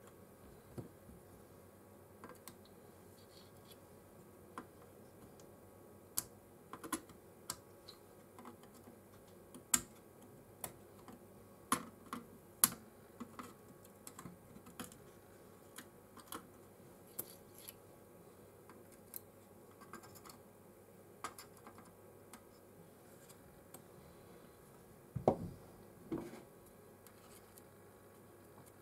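Scattered small clicks and taps of metal hand tools working on a circuit board while surface-mount capacitors are removed, with a louder knock or two near the end.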